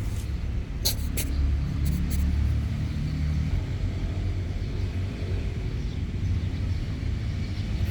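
A steady low rumble with a haze of noise above it, and a few sharp clicks between about one and two and a half seconds in.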